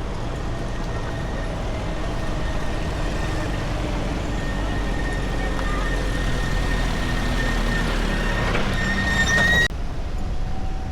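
Steady rumble of a vehicle driving on the road, heard from inside, with a faint steady whine; the sound changes abruptly about a second before the end.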